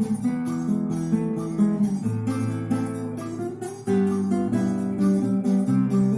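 Six-string acoustic guitar playing a forró instrumental: bass notes under strummed chords in a steady rhythm, the chord changing about two and four seconds in.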